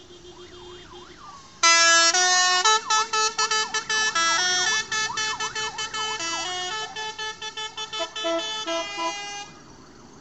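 A vehicle's musical horn plays a tune of quick, stepped notes, starting loudly about a second and a half in and stopping near the end. Under it a siren yelps rapidly up and down throughout.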